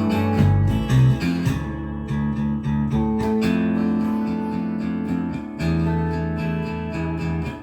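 Music with a beat: sustained bass notes changing under strummed and picked guitar, with regular cymbal-like ticks above.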